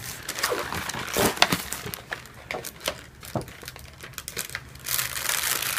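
Paper and plastic packaging crinkling and rustling as it is handled, with scattered sharp clicks. The rustling gets denser and louder near the end.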